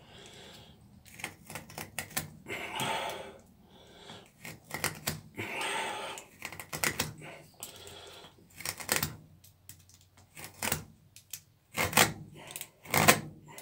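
Milwaukee utility knife cutting into a thick rubber block that has steel and fibre cords inside, clamped in a bench vise: irregular sharp clicks and short scraping strokes as the blade is worked through the cut.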